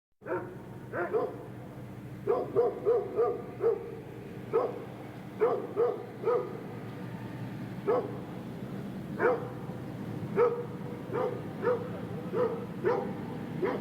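A dog barking in the distance, single barks and quick runs of three to five, over a steady low background hum.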